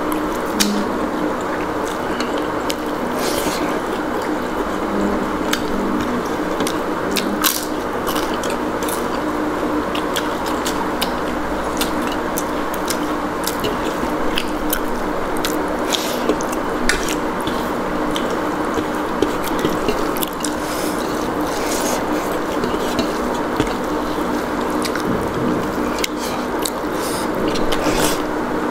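Close-up eating sounds of chicken curry and rice: many short wet clicks and smacks of chewing, scattered irregularly, over a steady background hum.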